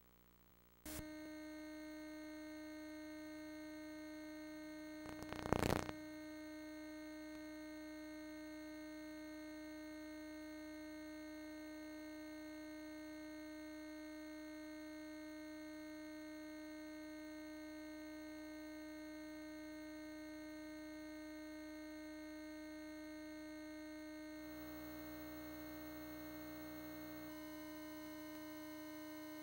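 Steady electrical hum with overtones from the VHS tape's playback audio, starting about a second in, with a brief burst of static crackle about five seconds in.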